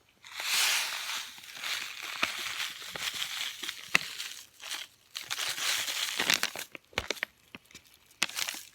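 Paper packets of instant oatmeal crinkling and rustling as they are cut open with scissors and emptied into a bowl, with scattered sharp clicks.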